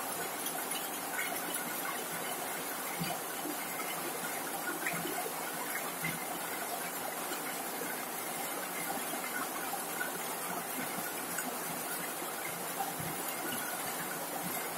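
Heavy rain falling steadily on a corrugated zinc roof: an even hiss with scattered ticks of single drops.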